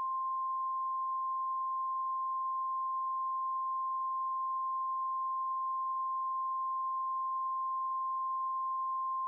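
NOAA Weather Radio 1050 Hz warning alarm tone: a single steady, unbroken tone, the alert that an emergency weather warning message is about to follow.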